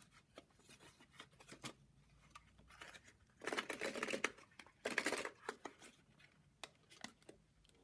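Paperboard box being handled and opened: small clicks and rustles, with two longer scraping swishes of cardboard rubbing about three and a half and five seconds in.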